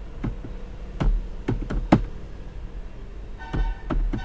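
Computer keyboard being typed on: about ten separate, irregularly spaced keystroke clicks as a command is entered. A short steady tone sounds under the last few keystrokes near the end.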